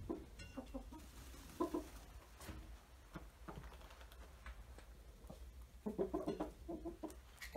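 Chickens clucking: a few short low clucks early, then a quick run of clucks about six seconds in.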